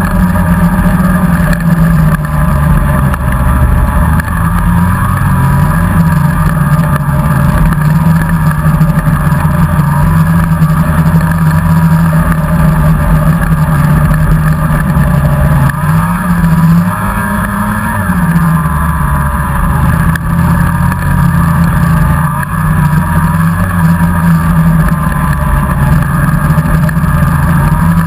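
Snowmobile engine running steadily at speed, heard up close from the riding sled, its pitch wavering slightly with the throttle. A little past halfway the revs rise briefly and drop back.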